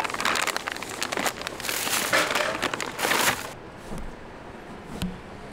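Plastic snack packaging crinkling as it is handled for about three and a half seconds, then falling quiet, with one soft knock near the end.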